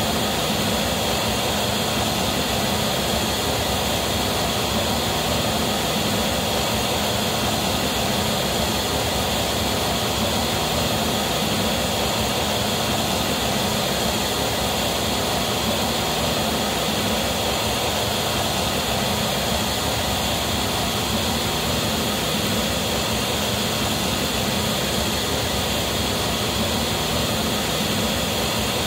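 PA loudspeakers playing a steady, even, full-range noise test signal that does not change, the measurement signal used for a Smaart Live loudspeaker measurement.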